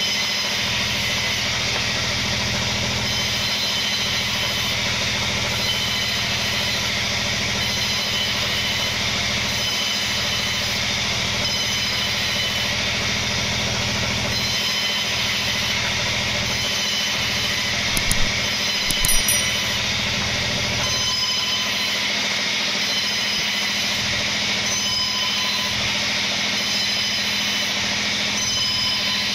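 Band sawmill running steadily while it rips kenanga-wood boards into strips, a constant machine drone with the blade cutting through the wood. A brief cluster of sharp knocks comes about two-thirds of the way through.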